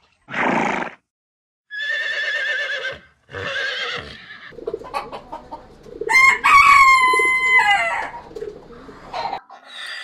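A horse snorts once, then gives two wavering calls. About 6 s in a rooster crows: one long cock-a-doodle-doo that steps down in pitch at its end.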